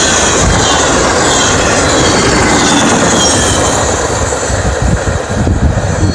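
Intermodal freight train cars rolling past close by, steel wheels rumbling on the rails with a faint wheel squeal. The last car passes about four seconds in, and the sound turns uneven and starts to fade as the train moves away.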